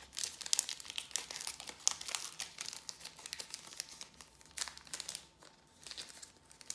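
Foil wrapper of a Pokémon Battle Styles booster pack crinkling with many sharp, irregular crackles as it is torn open and handled.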